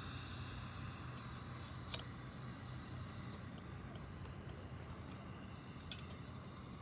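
Pressure lantern burning with a faint steady hiss over a low steady hum. Two sharp clicks, about two seconds and six seconds in, come as the lantern is handled.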